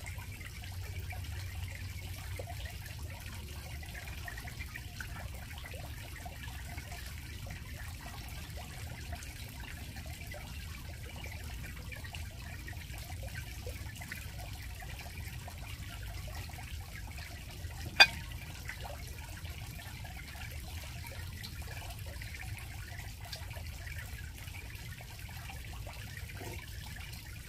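Faint eating sounds of a person eating rice with chopsticks from a bowl, over a steady low background rumble and hiss. One sharp click comes about two-thirds of the way through.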